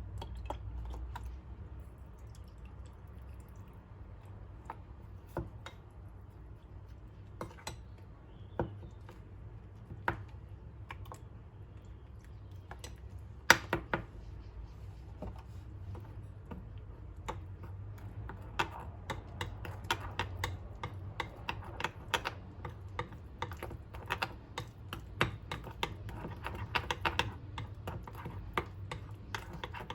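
Light clicks and taps of a spoon against a bowl while mixing wheat flour, sugar and coconut milk into a batter. The taps are sparse at first, with one sharper knock in the middle, and come quickly from a little past halfway, over a steady low hum.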